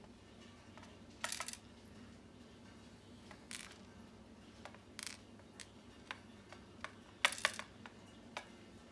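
Small metal lock pins and springs clinking as they are tipped and sorted in a pinning tray: a few light, scattered metallic clicks, the loudest about a second in and again about seven seconds in.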